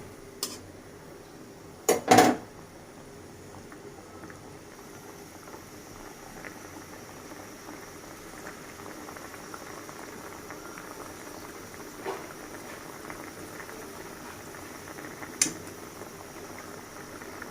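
Hilsa pieces in a thin mustard gravy bubbling steadily in a pan as it comes to the boil over raised heat. A few sharp knocks of kitchenware, the loudest about two seconds in.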